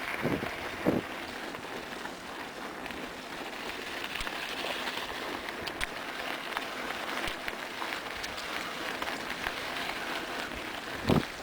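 Mountain bike rolling over a rough, overgrown trail: a steady crackling rustle of tyres on gravel and brush, with scattered ticks. There are two thumps in the first second and another near the end.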